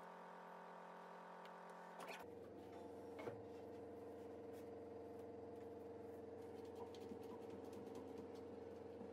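Faint steady hum that shifts to a different steady tone about two seconds in, with a knock about three seconds in and light clicking as a one-handed bar clamp is set and tightened.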